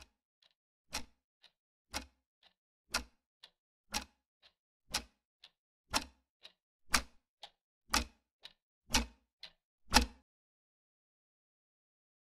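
Heartbeat sound effect: a low beat followed half a second later by a fainter one, about one pair a second, growing louder and then stopping about ten seconds in.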